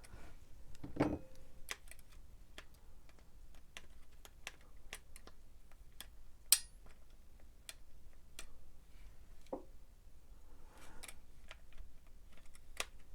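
Small irregular clicks and taps of the opened TRS-80 Deluxe Joystick's plastic internals being handled while an unhooked piece is fitted back into place. There is a duller knock about a second in and a sharper click about six and a half seconds in.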